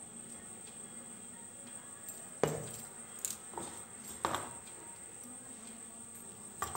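Hands mixing crumbly whole-wheat flour dough in a ceramic bowl, with a few sharp knocks and clinks against the bowl, the loudest about two and a half seconds in.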